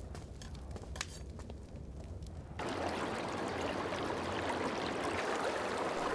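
Quiet room tone with a low hum and a few faint clicks, then about two and a half seconds in, the steady rush of a flowing river starts suddenly and carries on.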